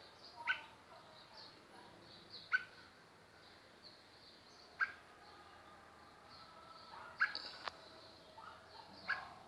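Squirrel cuckoo (alma-de-gato) giving short, sharp calls, five of them at intervals of about two seconds. Faint high chirping of other birds runs behind them.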